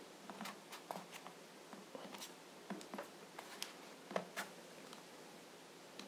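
Faint, irregular clicks and light plastic knocks as the bottom cover of an Acer Aspire One 722 netbook is pressed down by hand, its clips snapping into place.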